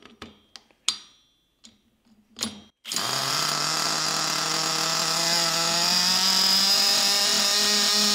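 A few clicks and knocks, then about three seconds in an electric drill starts spinning a tiny 3.5 cc two-stroke nitro engine to start it. It makes a loud, steady whirring tone that climbs slowly in pitch.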